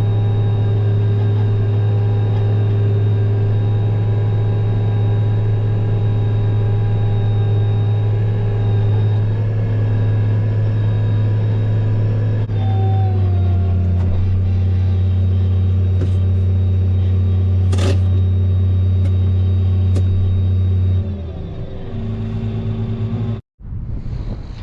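Heavy harvest-machinery engine running at a steady speed, its pitch stepping slightly lower about halfway through, then easing off to a quieter, lower speed near the end, with a few faint clicks.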